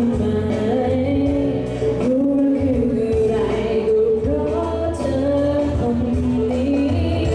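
A pop song played with a live band and sung, with a female voice leading.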